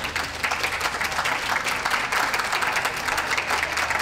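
Crowd applauding with steady, dense clapping.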